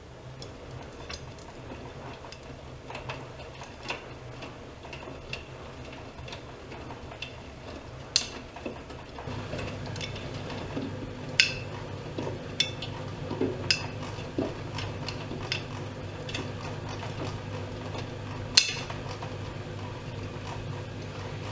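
Privileg Dynamic 7420 washing machine running, with irregular light clinks and clicks over a low hum; the hum steps up in level about nine seconds in, as the motor takes on more work.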